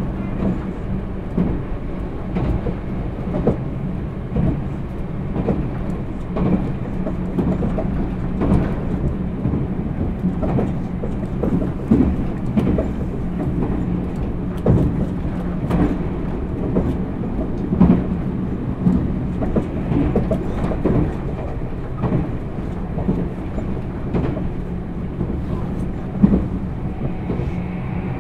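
Meitetsu 1000 series Panorama Super electric train running along the line. It makes a steady rumble with a low hum and frequent irregular knocks and clicks from the wheels on the track.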